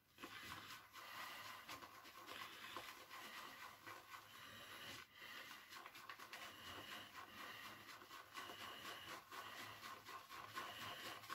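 Faint, steady scratchy swishing of an Omega 829 boar-bristle shaving brush being loaded with shaving soap.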